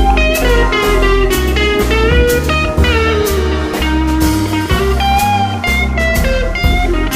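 Background music: a guitar melody with sliding notes over a bass line and a steady drum beat.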